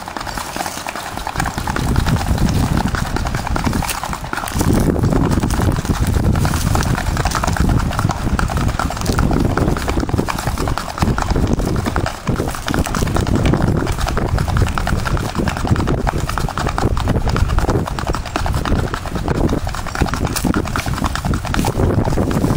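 Hooves of a ridden horse striking a gravel path in a rapid, even clip-clop as it gaits along, with a low rumble underneath.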